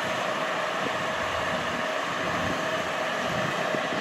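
KiHa 183 diesel railcar train running on the track: a steady rumble of engine and wheels on rail, with a steady hum running through it.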